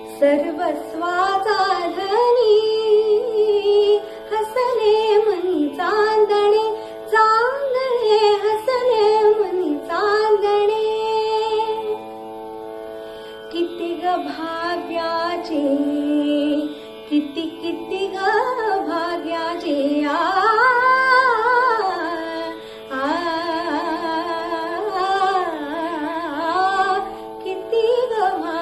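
A woman singing a Marathi song solo, in long ornamented melodic phrases, over a steady drone. The voice pauses briefly near the middle, leaving only the drone.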